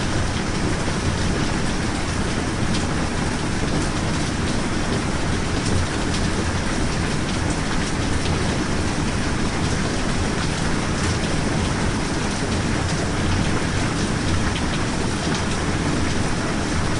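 Steady rain falling: an even, unbroken hiss with a low rumble underneath and faint ticks of single drops scattered through it.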